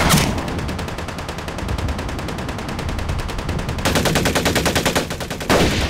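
Automatic gunfire sound effects: a steady rattle of rapid fire. About four seconds in comes a louder, more distinct burst from a submachine gun, which cuts off a moment before a sharp bang near the end.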